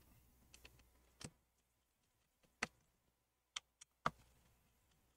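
Half a dozen faint, scattered clicks and taps of a small precision screwdriver and the small plastic and metal parts of an opened MacBook Pro, as a hinge bracket is unscrewed and lifted out. Between them it is nearly silent.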